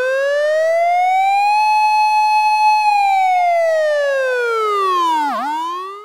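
Ambulance siren sound effect: one slow wail that rises in pitch, holds high for about a second, then falls away. Near the end it drops to a low dip, flicks briefly upward, and cuts off.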